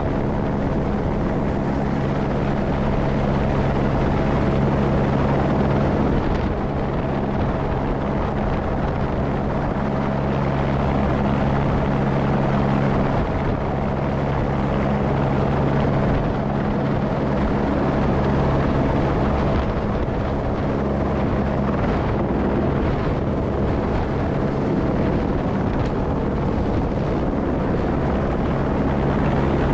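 Airbus H125 single-engine helicopter running steadily: a continuous turbine and rotor drone with a low hum that weakens about halfway through.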